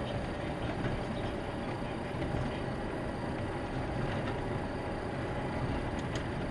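Steady road and engine noise of a car driving at speed, picked up inside the cabin by a dashcam microphone.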